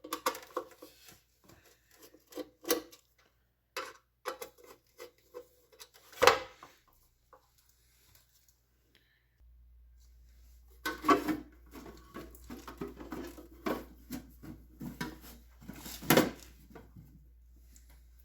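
Irregular clicks, taps and knocks of small metal parts and tools being handled as the connection box of a submersible motor is wired and its cover fitted back on, with two louder knocks, one about 6 seconds in and one near the end. A faint low hum starts about halfway through.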